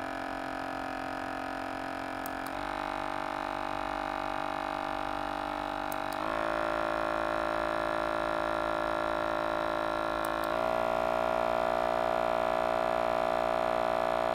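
Massage gun motor running with no load, a steady hum that steps up in speed three times as it is switched up through its levels, each step higher in pitch and a little louder. The gun is fed 8.4 volts from a bench power supply through its charging input because its battery pack is dead.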